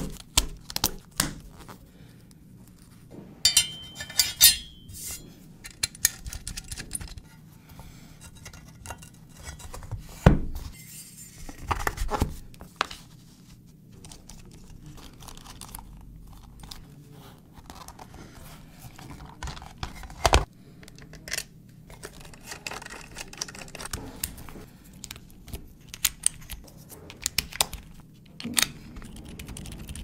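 A mechanical keyboard being assembled by hand: Mode Anthracite switches pressed into the plate with sharp clicks and snaps, small plastic and metal parts clinking, and a small screwdriver at work. The clicks come irregularly, with a few louder knocks.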